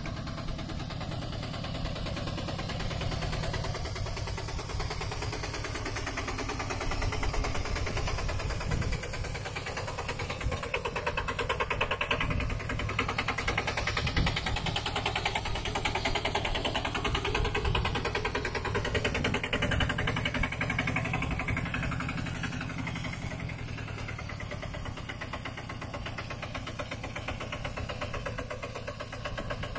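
Two-wheel walking tractor's single-cylinder diesel engine running steadily while it drags a loaded wooden trailer through deep mud. It is a little louder through the middle stretch and eases near the end.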